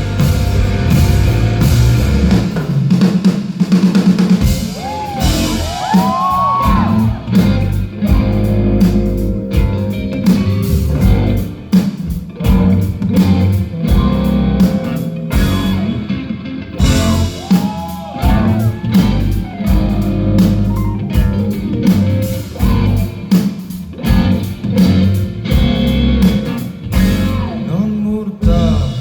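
Rock band playing a loud wordless passage on drum kit, bass and electric guitar, with bending, sliding high lines about five seconds in and again midway.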